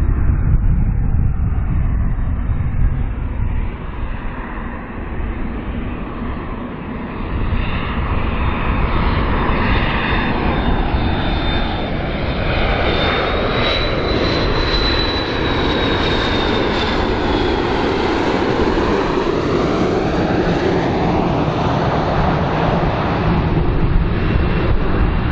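McDonnell Douglas MD-80-series airliner on landing approach, its rear-mounted JT8D turbofans giving a steady jet roar. A high whine in the roar climbs in pitch and then falls away about halfway through as the plane passes.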